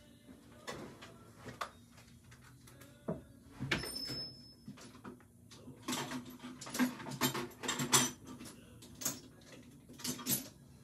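Scattered clicks, knocks and clatter of tools being searched through and moved about on a workbench at some distance, sparse at first and busier from about halfway through.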